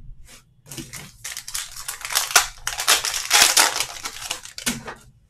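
Foil wrapper of a Panini Optic basketball card pack crinkling as it is torn open by hand, loudest around the middle. A short knock at the very start.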